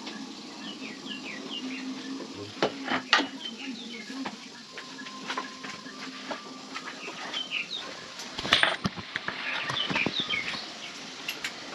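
Metal hand tools clinking and knocking, the loudest knock about eight and a half seconds in, over a steady low hum and many short high chirps.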